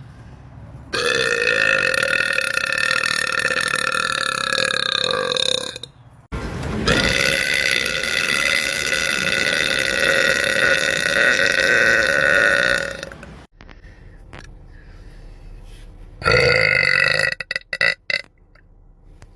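A woman burping three times: two long burps of about five and six seconds back to back, each held at a steady pitch, then a short one near the end.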